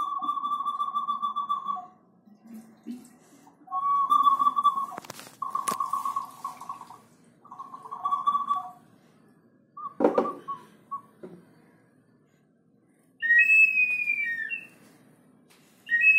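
Ceramic Peruvian whistling bottles, tipped by hand so the water inside pushes air out through their whistles. A warbling whistle sounds in several bursts of one to two seconds, and a hard ceramic knock comes about ten seconds in. Near the end come higher two-tone whistles that fall in pitch.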